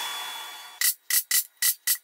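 TIG welding arc hiss fading away, then a small hammer tapping a punch into aluminum angle: quick sharp metallic strikes, about four a second, each with a brief ringing tone.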